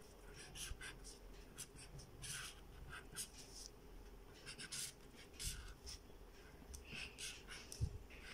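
Felt-tip marker drawing short strokes on paper: faint, irregular scratching, with a soft low bump near the end.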